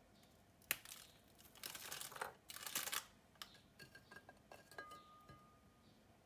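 Plastic packet of ladyfinger biscuits crinkling in two short bursts as a biscuit is pulled out, after a sharp click near the start, followed by a few light clicks and taps of handling.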